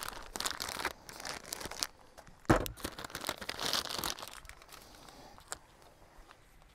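Plastic pouch of ready-to-wok noodles being torn open and crinkled in the hands, with one sharp knock about two and a half seconds in; the crinkling dies away after about four seconds.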